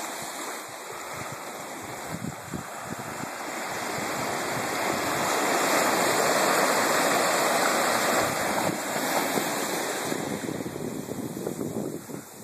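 Ocean surf washing in over the sand and around shoreline rocks, swelling to a peak about halfway through and then ebbing away.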